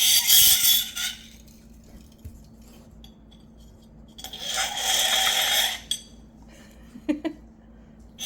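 Warm metal spoon pressed onto dry ice, screeching twice with a harsh squeal, about a second the first time and a little longer the second, about four seconds in. The screech comes from the dry ice turning to gas under the warm metal and making the spoon vibrate.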